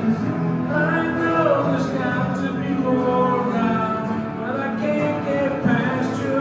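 A man singing a worship song into a microphone while strumming a guitar.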